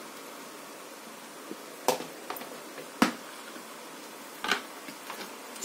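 Light knocks and taps of a hand and omelettes against a metal cooking pot as omelettes are set onto layered biryani rice. There are three louder knocks about a second apart, with smaller taps between, over a faint steady hiss.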